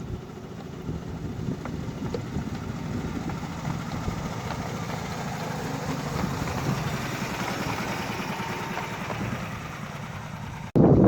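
Petrol engine of the miniature-railway locomotive Hercules running steadily with a low rumble, growing louder toward the middle and easing off. Just before the end it cuts suddenly to loud wind buffeting the microphone.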